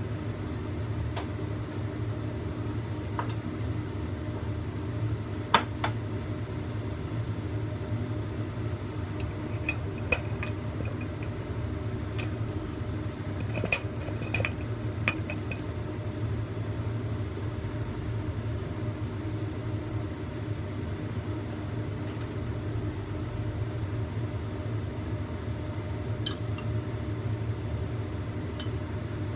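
Ceramic dishes and a spoon clinking now and then as a bowl and plate are handled, a dozen or so short sharp clinks, several bunched together around the middle. Under them runs a steady low hum.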